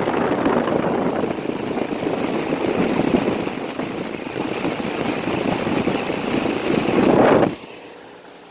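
2008 Rheem Classic 5-ton heat pump's outdoor unit running in cooling mode, its condenser fan giving a loud, uneven rush of air. The sound drops off sharply about seven and a half seconds in.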